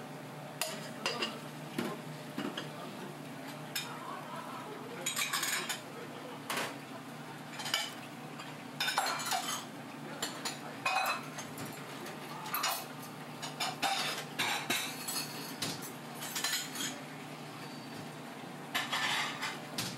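Kitchen clatter: irregular clinks and scrapes of metal utensils and dishes, some lasting about a second, over a steady low hum.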